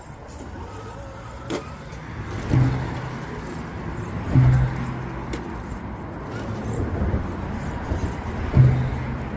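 RC rock crawler's electric motor and drivetrain whirring in short throttle bursts, three or four times, over a steady low outdoor rumble.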